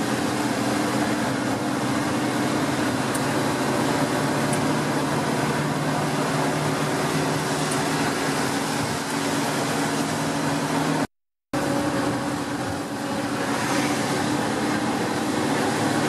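Steady running noise inside a moving vehicle's cabin: engine and road noise with a low, even hum underneath. The sound cuts out for about half a second near eleven seconds in.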